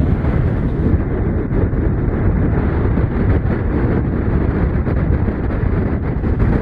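Wind buffeting the microphone: a loud, unsteady low rumble that never lets up.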